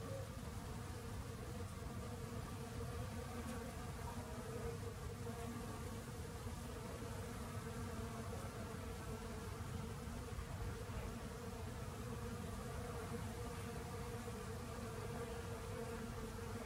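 Honeybees buzzing as they forage on ivy blossom: a steady, unbroken hum of many bees' wings.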